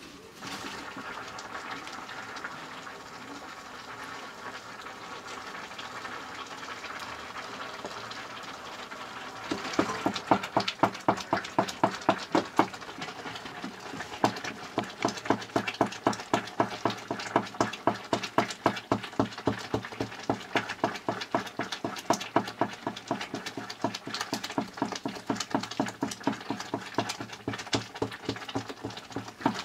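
Nettle leaves sizzling in a metal pan over a wood fire. About nine seconds in the sizzling jumps louder. From then on a ladle stirs and scrapes in the pan in quick, regular strokes over the sizzling.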